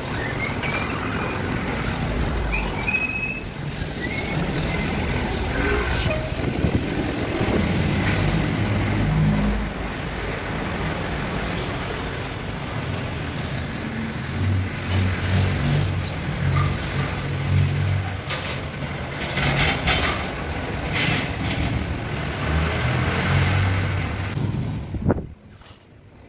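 Road traffic with trucks and other vehicles passing, engines running and rising and falling in loudness. The sound drops away sharply about a second before the end.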